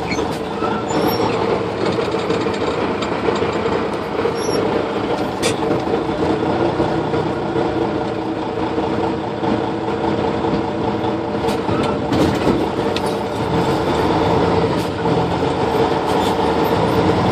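Panel truck's engine running steadily at light throttle, heard from inside the cab, with a few faint clicks and rattles over it.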